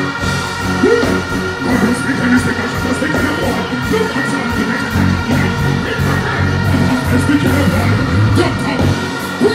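Dancehall music played loud through a concert sound system, with a vocal over the beat.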